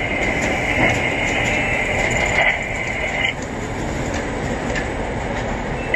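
Tower crane machinery heard from inside the operator's cab while he works the joystick controls: a steady rumbling with a high whine that cuts off a little over three seconds in.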